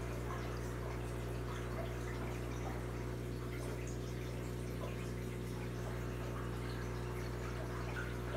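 Aquarium filter running: a steady low hum under trickling, dripping water.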